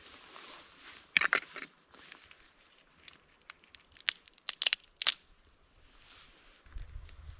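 Dungeness crab shell being cracked and broken apart: a cluster of sharp cracks about a second in, then scattered snaps and crackles.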